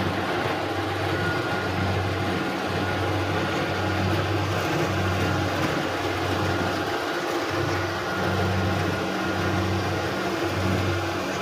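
Kubota Harvest King combine harvester running steadily while harvesting rice: a dense mechanical din with a low hum that swells and fades about once a second.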